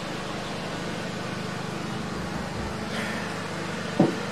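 Steady low mechanical hum with a faint even background hiss, and a single short knock about four seconds in.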